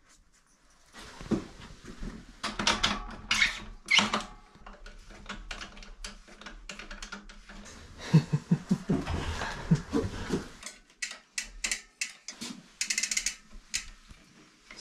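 Bicycle chain being handled and fed onto the drivetrain: irregular clicking and metallic rattling of chain links, busiest around the middle.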